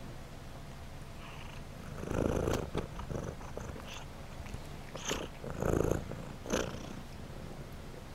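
Domestic cat purring with a steady low hum, with louder scuffing bursts about two seconds in and again around five to six and a half seconds in as a cat's fur brushes close against the microphone.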